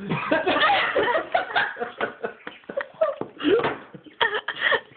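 A group of people laughing in repeated short fits, several voices overlapping, as an attempt to hold their breath for hiccups falls apart.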